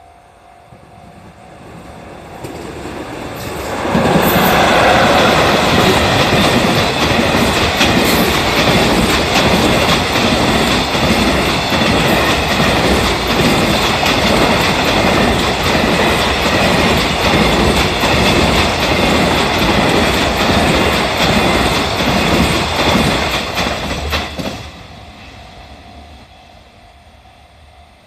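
A freight train hauled by an EF66 electric locomotive passing close by at speed. The noise builds over about four seconds, runs loud and steady as the wagons pass for some twenty seconds, then drops off sharply as the last wagon clears and fades away.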